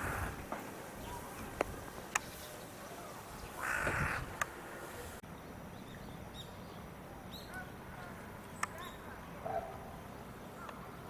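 Two short, harsh bird calls, one at the start and a second about four seconds in, with a few sharp clicks and faint high chirps after them.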